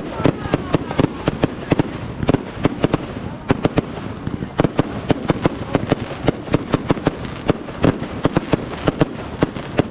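Fireworks display going off: a dense, irregular run of sharp cracks and bangs, several a second, over a steady rumble.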